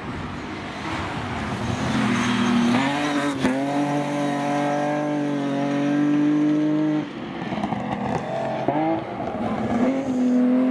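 Rally car engines running at high revs on a gravel stage: one car holds a steady high note for several seconds with a sharp crack just before, then after a cut another car's revs rise briefly and hold steady again.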